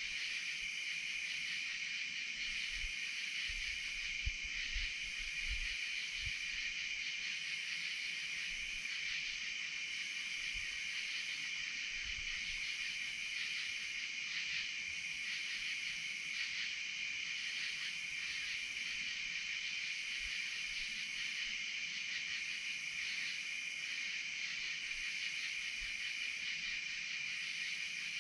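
Night insect chorus: a steady high trill of crickets, with a higher call above it that pulses on and off every second or two.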